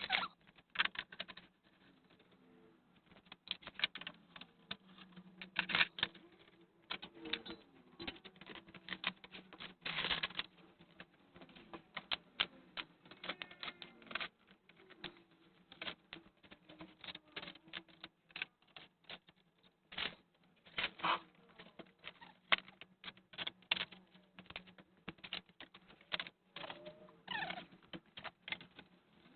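Irregular clicks, taps and light clattering of parts and fasteners being handled as scooter covers are taken off, over a faint steady hum.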